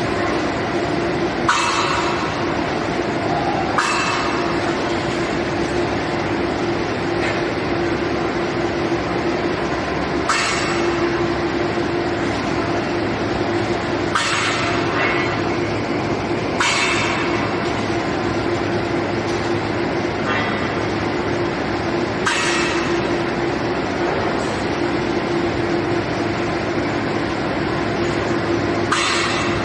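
Aluminium billet homogenizing furnace machinery running with a steady hum and rumble, broken at irregular intervals of a few seconds by short hisses like compressed-air releases.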